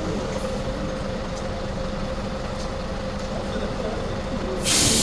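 Large bus idling with a steady engine hum. Near the end comes a sudden loud hiss of compressed air from the bus's air system.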